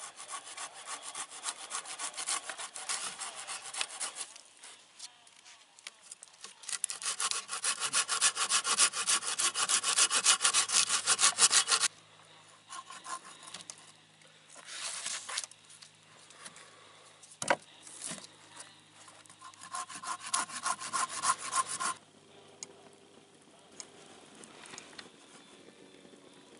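Hand pruning saw cutting through a dead log in quick back-and-forth strokes. A run of strokes, a pause, a longer and louder run, then a few scattered strokes with one sharp knock, and a last short run about three quarters of the way through.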